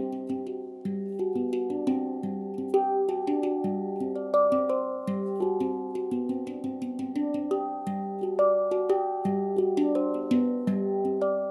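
Instrumental background music: a melody of ringing notes, each struck sharply and held, over lower sustained notes.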